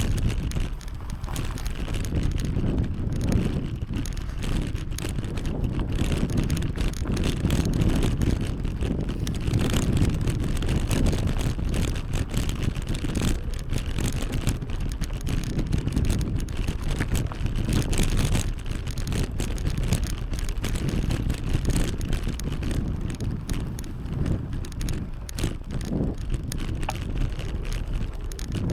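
Wind rumbling and buffeting on the camera microphone while cycling: a steady, uneven low rush throughout.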